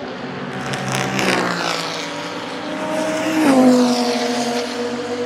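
Audi R8 LMS GT2's 5.2-litre V10 racing engine running on track. Its note falls about a second in, drops sharply about three and a half seconds in at its loudest, then holds a steady lower note.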